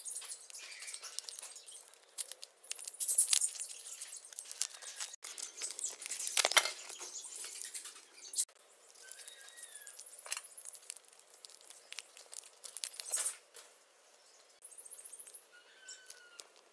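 A candy packet is being opened and handled: irregular crackling and clicks, loudest in a few short spells. Two faint chirps sound in the background.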